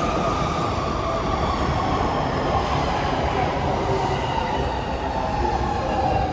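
Electric train running along the platform while slowing. Several tones from the motors and brakes glide slowly down in pitch over dense rolling and wheel noise.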